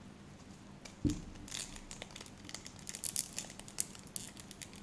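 Trading-card foil pack being torn open and crinkled by hand: a soft thump about a second in, then a run of sharp crackling.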